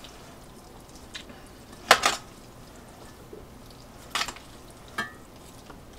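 Utensils knocking against a stainless steel mixing bowl while noodles and vegetables are tossed in sauce: a few sharp, separate clinks, the loudest about two seconds in.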